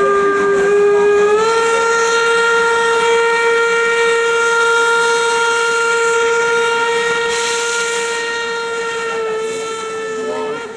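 Steam locomotive whistle blown in one long blast of about eleven seconds. Its pitch steps up once as it opens fully, then dips slightly just before it cuts off.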